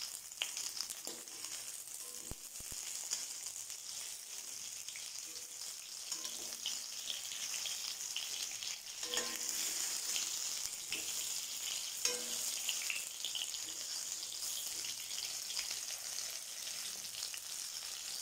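Stuffed small brinjals sizzling as they fry in sesame oil in a kadai over a medium flame. A steel spoon knocks and scrapes against the pan a few times as they are turned.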